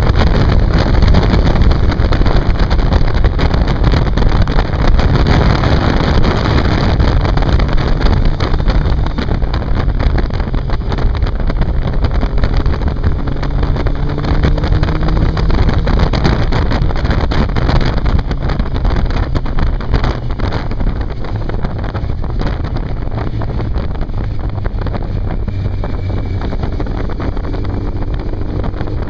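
Inline-four sport motorcycle riding at speed on a twisty road, heard from the bike itself: heavy wind buffeting on the microphone over the engine, whose note rises a couple of times as it pulls out of bends.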